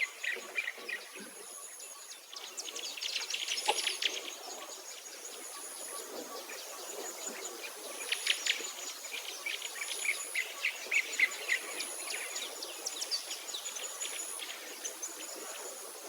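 Outdoor nature ambience: several birds chirping and singing in quick, scattered phrases. Over them, an insect's thin, high buzz comes and goes every second or two.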